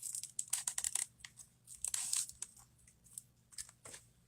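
Irregular crinkling and small clicks of plastic being handled, dense for the first two seconds and then sparse: small phone parts and their plastic being handled during a repair.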